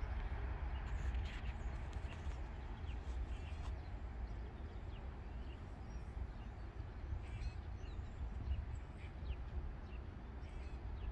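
Faint outdoor ambience: a low, fluctuating rumble with scattered short bird chirps over it.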